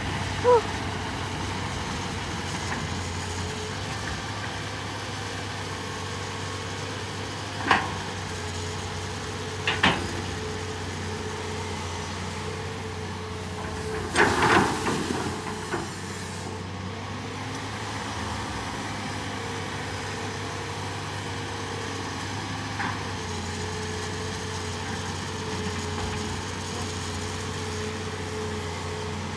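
Hitachi EX200 excavator's diesel engine running steadily, with a few sharp knocks. About halfway through, a loud splash lasting a second or so as the bucket dumps a load of water and mud.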